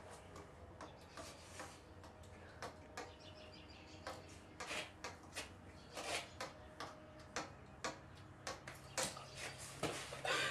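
Faint, irregular light taps and clicks of a thin stick against a brick wall.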